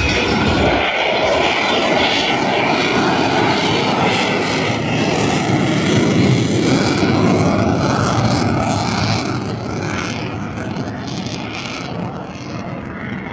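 Airplane passing overhead: a loud, steady engine noise that slowly fades over the last few seconds as it moves away.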